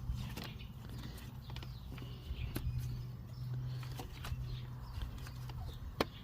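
Scattered light clicks and knocks of hands plugging a wiring connector onto a tractor alternator, over a steady low hum, with one sharper click near the end.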